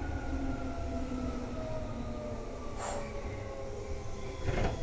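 Seibu 2000 series electric train heard from inside the car, its motor and gear whine falling steadily in pitch as the train slows. Two short noisy bursts come through, about three seconds in and again near the end.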